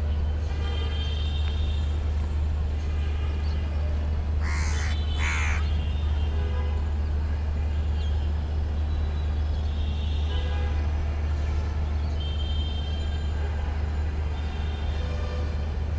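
City traffic: a steady low rumble of vehicles with horns sounding now and then, and a crow cawing twice, loudly, about four and a half and five and a half seconds in.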